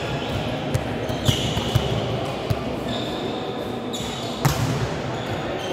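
Volleyballs being struck and bouncing on a sports-hall floor during a team drill: a run of irregularly spaced thuds.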